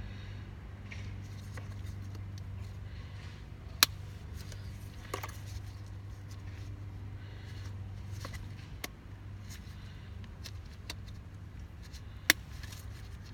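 Small clicks and rattles of steering-column trim and connectors being handled and fitted, with two sharp snaps, one about four seconds in and one near the end, over a steady low hum.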